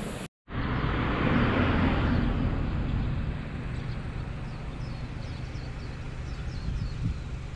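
A car passes close by, its noise swelling and fading over a couple of seconds, over a steady low background rumble. Faint, short, high bird chirps follow through the second half.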